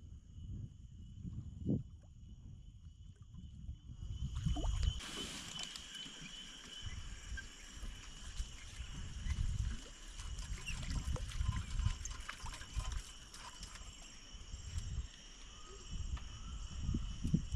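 Insects shrilling steadily at a high pitch in natural riverside ambience, with irregular low rumbles underneath.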